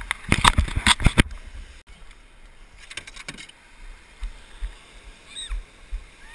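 Knocking and rustling on a chest-mounted action camera for about the first second, then wind rumbling on its microphone and water lapping around a kayak, with a faint high call near the end.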